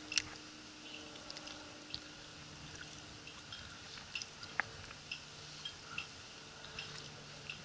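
Wet magnet-fishing rope being hauled in hand over hand, with faint drips and scattered small clicks and rustles as the rope is pulled and coiled.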